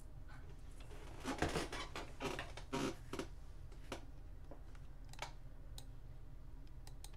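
Scraping and rustling handling noises at a computer desk for about two seconds, starting about a second in, then a few scattered light clicks, typical of a computer mouse. A steady low hum runs underneath.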